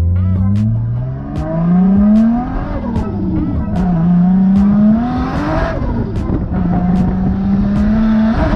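Toyota Chaser JZX90's straight-six engine heard from inside the cabin while drifting, its revs climbing and dropping several times and then holding steady, with a hiss of tyre noise around the middle and again near the end. A music track's beat ticks along over it.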